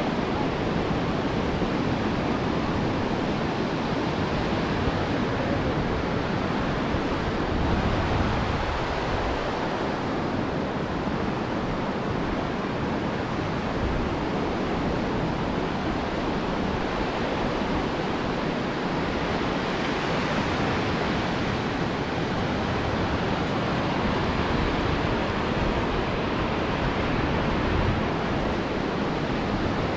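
Ocean surf washing on a beach: a steady wash of breaking waves that swells and eases slightly.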